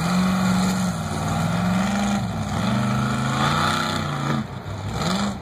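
Mega truck engine running hard under throttle as the truck races down the mud course. Its pitch holds high, drops briefly about two seconds in, climbs again, then sags near the end.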